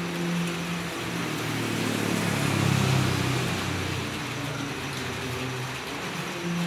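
Steady rain falling on a village street. Under it, a low engine rumble from a passing motor vehicle swells to a peak about three seconds in and fades, with a steady low hum at the start and again near the end.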